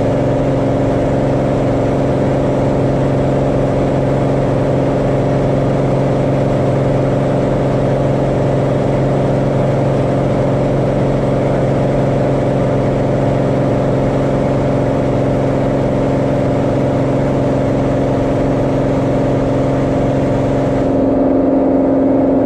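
Cirrus SR20's piston engine and propeller running steadily at climb power, heard close up from outside the cabin. Near the end the tone shifts and the hiss above it drops away.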